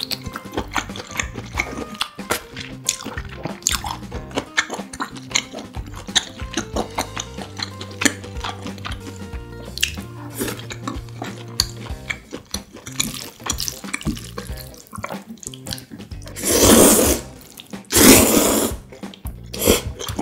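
Close-up wet chewing and mouth smacks from eating black-bean-sauce instant noodles and steak. Two loud slurps of noodles come near the end.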